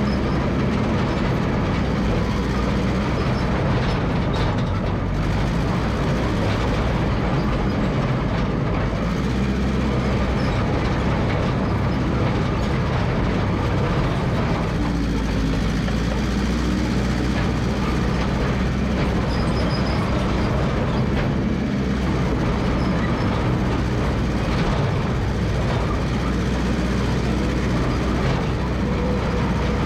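Massey Ferguson MF 300 crawler dozer's engine running steadily at working speed.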